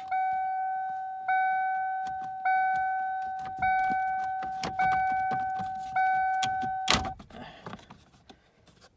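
1997 Ford Mustang's warning chime dinging over and over, one single-pitched ding about every 1.2 seconds, set off when a black wire touches metal. About seven seconds in there is a loud click and the dinging stops, followed by a brief rattling.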